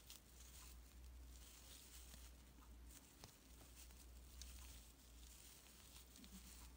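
Near silence: faint rustling and light ticks of a metal crochet hook pulling fluffy acrylic scrubber yarn through stitches, over a low steady hum.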